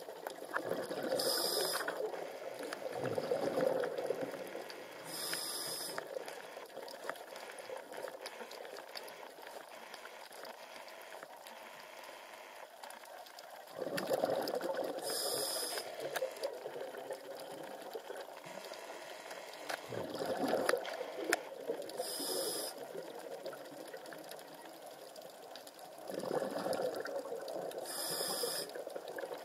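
Scuba diver breathing through a regulator underwater: a short hiss on each breath and bursts of exhaled bubbles, about five breaths.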